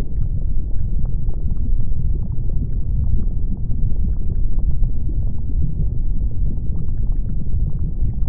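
Erupting volcano and lava: a loud, steady deep rumble with many small crackles and pops scattered over it.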